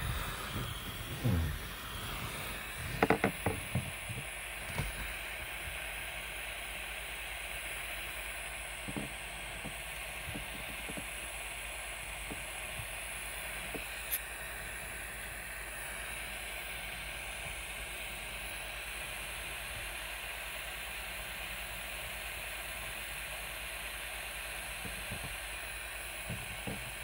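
Portable butane soldering iron burning with a steady hiss while a wire splice is soldered. A few short knocks and clicks from handling the wires and tools come in the first few seconds, the loudest about three seconds in.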